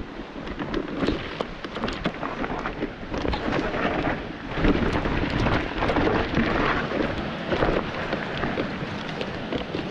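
Mountain bike riding over a rough, rocky trail: the tyres rattle and knock over rocks, with many sharp clicks and a low rumble on the microphone that grows louder about halfway through.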